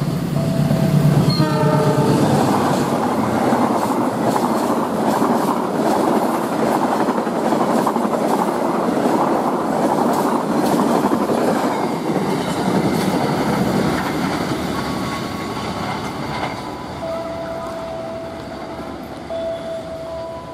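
A KAI GE CC206 diesel-electric locomotive hauling a passenger train runs through a station at speed, its engine running loud and its horn giving a short blast that falls in pitch as it passes. The coaches then rush past with their wheels clattering over the rail joints for about ten seconds before the sound fades away. A steady electronic tone sounds again in the last few seconds.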